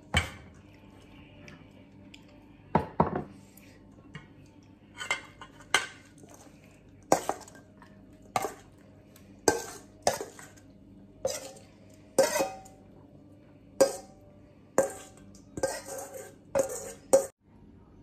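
A metal spoon knocking and scraping against a stainless steel mixing bowl as salad is spooned out of it: a run of sharp clinks, roughly one a second, each with a short ring.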